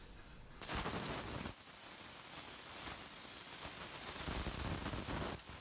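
Faint, steady hiss of a CNC plasma torch cutting thin aluminum sheet, with a louder stretch about a second in.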